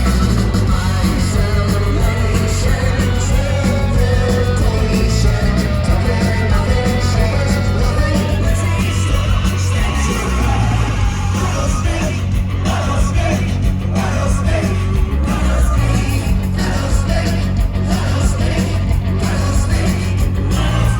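Rock band playing loud and live: driving drums, bass and guitars, with sung and shouted vocals over the top.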